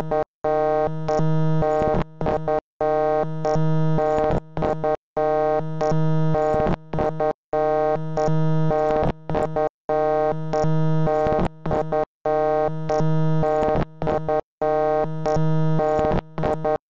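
A harsh, steady electronic buzzing tone, dense with overtones, played as a loop that cuts out briefly about every two and a half seconds.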